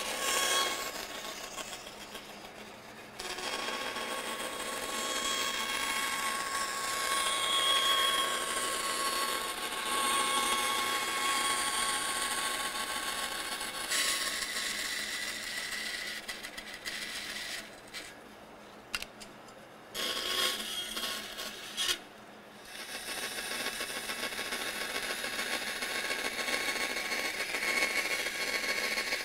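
Bandsaw running with a steady whine while its blade cuts a thin 3.5 mm strip of jequitibá wood, fed by hand. The sound drops away briefly twice after the middle.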